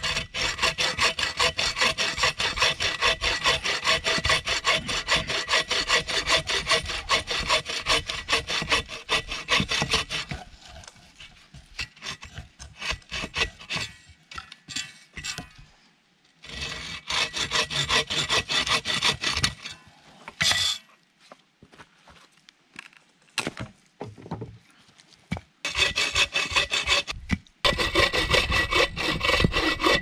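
Folding bow saw cutting through a dead spruce log in quick back-and-forth strokes. The sawing breaks off about ten seconds in, leaving scattered small knocks and scrapes, then picks up again in two more runs, the last near the end.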